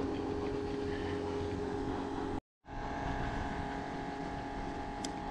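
Steady engine hum, cut off for a moment about halfway through, with its pitch changed after the break. A faint click near the end.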